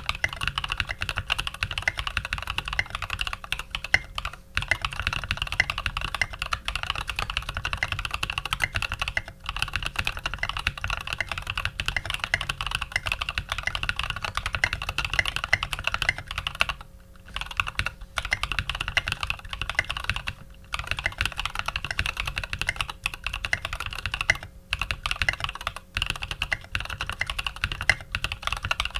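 Fast, continuous typing on a custom mechanical keyboard with lubed Cream linear switches, an aluminium plate and SA-profile keycaps, broken by a few brief pauses.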